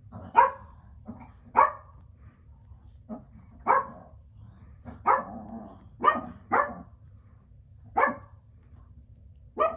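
Biro Biewer puppies yapping as they wrestle in play: about eight short, sharp barks spread unevenly, with a few softer yips between them.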